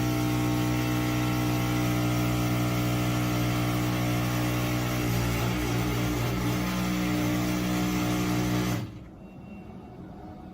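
Heavy machine's engine running with a steady drone, its pitch shifting about halfway through; it cuts off abruptly near the end, giving way to a quieter, rougher engine sound.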